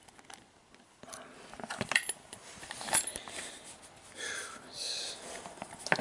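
ERA discus padlock and picking tools handled: a few faint clicks for about a second, then irregular metallic clicks, clinks and taps with rustling as the lock is shifted and turned in the hands.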